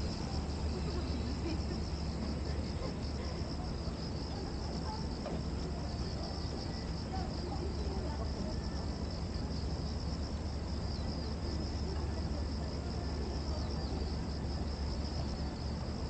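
Cicadas droning in a steady, unbroken high-pitched chorus, with a steady low rumble underneath.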